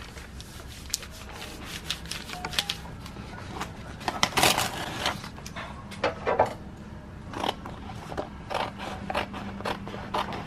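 Sheets of paper and a clear laminating sheet handled and smoothed down by hand: rustling, rubbing and scraping with scattered clicks, and a louder crinkling rustle about four seconds in. Scissors start snipping through the laminated sticker sheet near the end.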